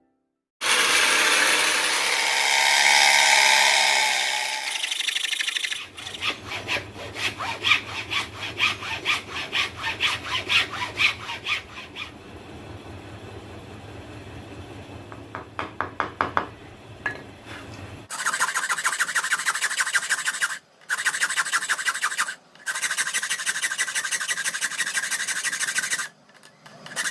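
Electric jigsaw cutting wood, its blade rasping through the board in several runs with brief stops between them.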